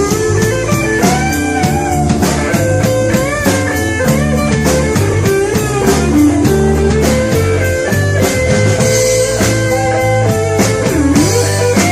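Blues-rock band playing: lead guitar with bent notes over bass and a steady drum beat.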